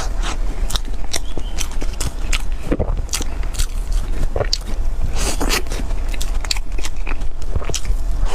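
A person eating dessert close to the microphone: irregular biting, chewing and scraping clicks, over a steady low hum.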